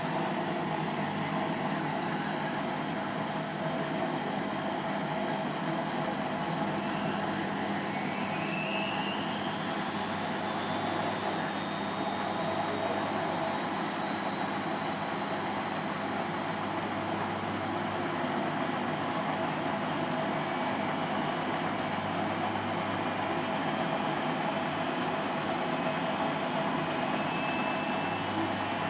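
Beko Eco Care WMA 1510 W washing machine on its final spin: a steady rushing machine noise, with a motor whine that rises in pitch from about eight seconds in as the drum speeds up.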